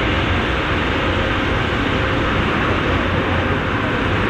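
Massey Ferguson tractor's diesel engine running hard and steady under heavy load as it drags a weighted pulling sled along the track.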